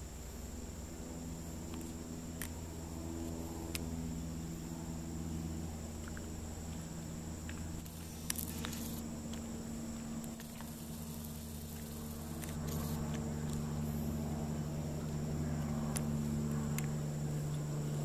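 A distant engine drone, low and steady, that grows louder about two-thirds of the way through. Under it runs a thin steady high buzz, with a few light clicks.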